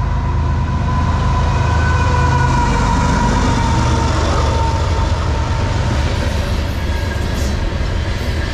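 CSX GE diesel freight locomotive running past close by: deep engine rumble with a steady whine, then the refrigerated boxcars behind it rolling by on the rails.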